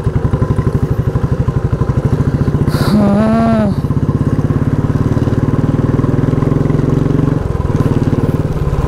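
Motorcycle engine running while riding, with a steady rapid firing pulse. About three seconds in, a brief wavering tone sounds for under a second, and the engine note changes about seven and a half seconds in.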